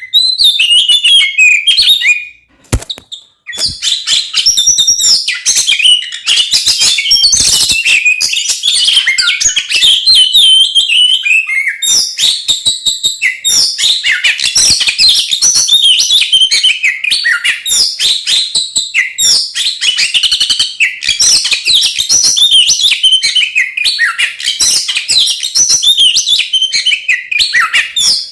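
Oriental magpie-robin (kacer) in full, agitated fighting song: a loud, almost unbroken stream of varied whistles mixed with rapid harsh chattering notes, with one short pause about three seconds in.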